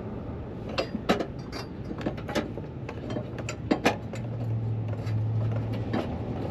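Scattered clicks and knocks of hand tools and parts being handled while a rear chassis brace is fitted under a car, over a steady low hum that swells for about a second after the middle.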